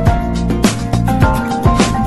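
Background music with a steady drum beat over held notes and bass.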